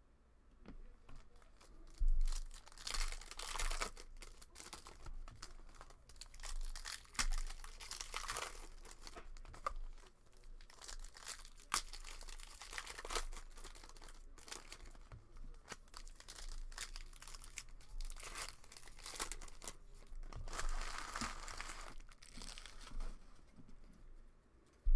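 Foil trading-card pack wrappers being torn open and crinkled by hand, in repeated bursts of tearing and crinkling with a few sharp clicks as cards are handled.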